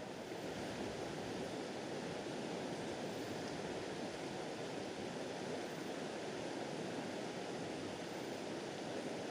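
Swift river current rushing steadily, an even, unbroken sound of flowing water.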